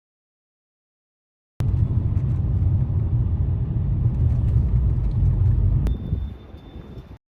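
Silence, then a low rumbling noise cuts in abruptly about a second and a half in, like traffic or wind on the microphone, thinning out and stopping near the end. A faint, steady high tone sounds over its last second.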